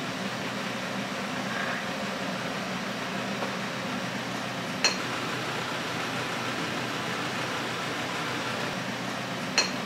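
A fan running steadily with a low hum. Two short clicks, about five seconds in and again near the end.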